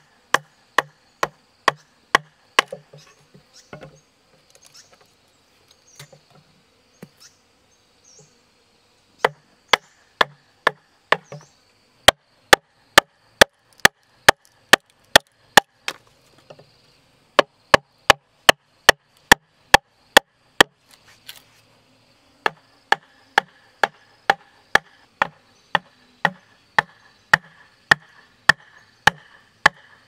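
Wooden mallet striking the wooden handle of a chisel, about two blows a second, as the chisel cuts rotten wood out of the hollow core of a tree trunk. The blows thin out between about three and nine seconds in and pause briefly about two-thirds through. Insects hum steadily underneath.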